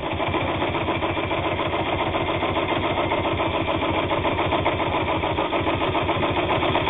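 Vintage Japanese all-steel gear-drive sewing machine stitching through split leather, its motor running steadily under a rapid, even beat of needle strokes.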